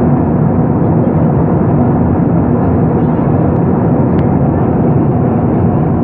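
Steady engine and airflow noise of an Airbus A320-212 in flight, an even rushing sound with a low hum underneath. One small click about four seconds in.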